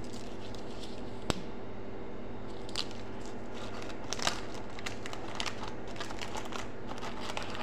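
Plastic chocolate-bar wrappers crinkling and the cardboard box rustling as the bars are handled, in scattered short crackles and clicks over a steady low hum.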